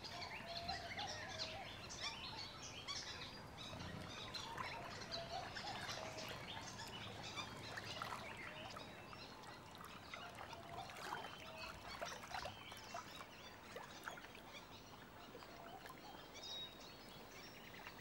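Faint tropical forest ambience: many scattered bird chirps and short calls over a low, steady background hiss.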